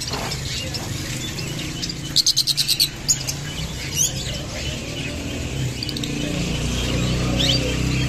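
Small caged parrots, lovebirds and budgerigars, chirping, with a quick run of about seven shrill chirps a couple of seconds in and scattered single calls after, over a steady low hum.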